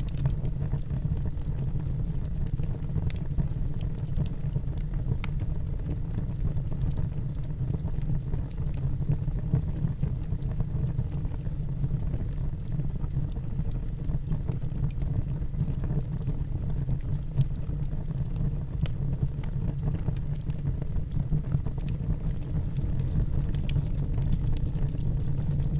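Wood campfire burning: a steady low rumble with scattered faint crackling pops.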